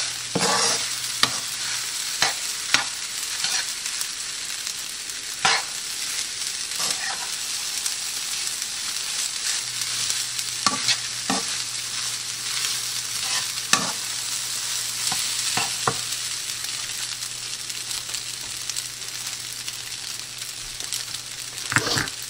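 Fried rice sizzling steadily in a pan on high heat, with scattered sharp scrapes and taps of a utensil against the pan as the rice is stirred.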